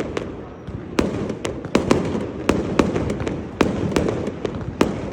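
Fireworks exploding: a rapid irregular series of sharp cracks and bangs over a continuous low rumble of shell bursts.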